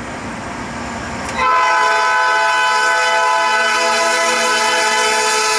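Air horn of a Norfolk Southern GE AC44C6M locomotive, a P3 horn, sounding one long steady chord of several notes. It starts suddenly about a second and a half in, over the low rumble of the approaching train.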